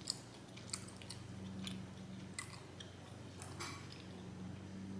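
Close-miked chewing of spaghetti with meat sauce: a handful of short wet mouth clicks and smacks, irregularly spaced, over a low steady hum.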